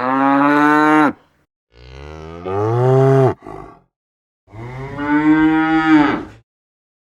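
A cow mooing three times, each moo a long call that falls in pitch at its end, with short silences between them.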